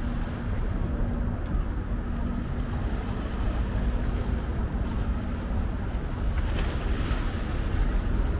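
Wind rumbling on the microphone, with a faint steady engine hum underneath that drops in and out.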